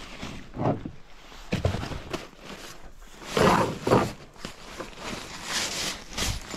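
Camping gear being shifted around in a pickup bed: nylon tent bags and packs rustling and bumping in irregular bursts, the loudest a little past the middle.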